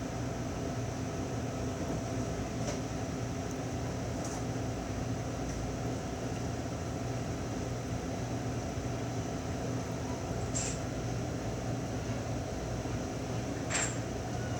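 Steady mechanical hum made of several constant pitches, with a few faint clicks.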